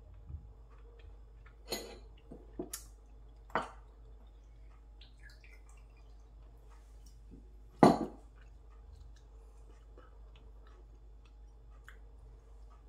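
Glass soju bottle handled and poured into a small glass: a few sharp clicks and knocks of glass, a faint trickle of pouring, then the loudest knock about eight seconds in as glass meets the wooden table.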